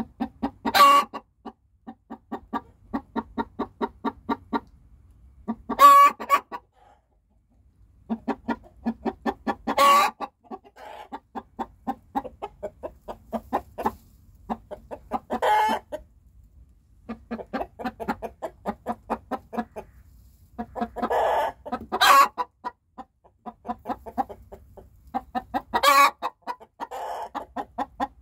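Hen's egg song: runs of quick, even clucks, each building to a loud, longer squawk, repeated about every four to six seconds. This is the laying call hens give around laying an egg.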